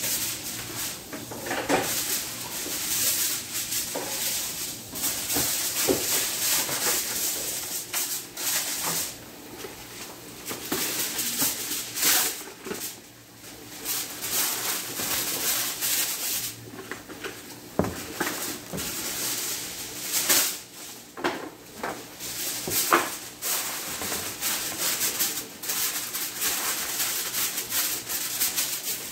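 Aluminium foil crinkling and crackling as it is pressed and folded over the rim of a disposable aluminium pan, in a run of short crackles.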